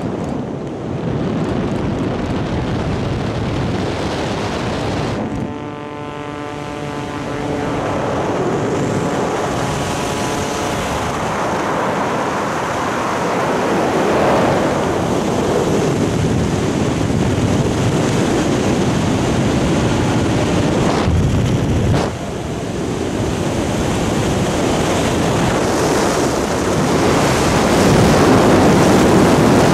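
Wind rushing over the microphone of a skydiver's camera during a parachute descent. About five seconds in, a pitched hum with evenly spaced overtones rises out of the wind for about two seconds.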